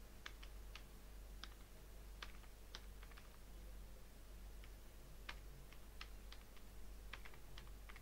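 Faint typing on a computer keyboard: irregular single keystrokes, a few per second, over a low steady hum.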